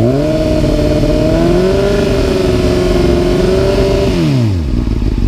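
Honda Hornet's inline-four engine, through a carbon Leo Vince exhaust, revved up from idle to about 6,000 rpm. It is held steady there for about four seconds for a static sound-level test, then let fall back to idle near the end.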